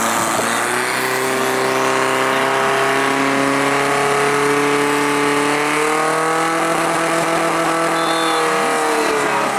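Portable fire pump engine running hard at high revs, holding steady with a slight rise in pitch about halfway through, while it drives water through the hoses to the nozzles.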